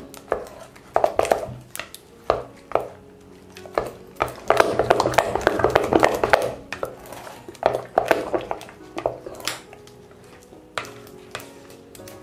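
A silicone spatula stirring thick eggless pastry cream in a stainless steel pot, with scraping strokes and irregular knocks against the pot's sides, busiest around 1 s and from about 4.5 to 6.5 s in. Faint music plays underneath.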